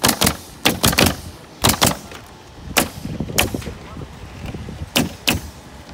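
Pneumatic nail guns firing nails into roof battens: sharp shots at an uneven pace, often two in quick succession, about ten in all.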